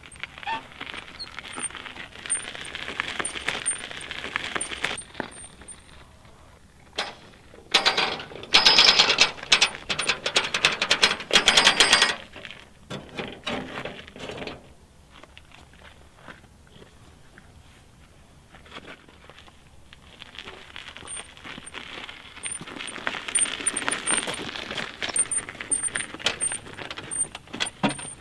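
A loaded wheelbarrow rolling and rattling over gravel, with footsteps crunching. The clattering is loudest for a few seconds near the middle.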